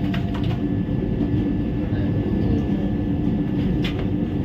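Vande Bharat Express electric train running at speed, heard from inside the passenger coach as a steady rumble of wheels and car body. There are a few faint clicks near the start and again about four seconds in.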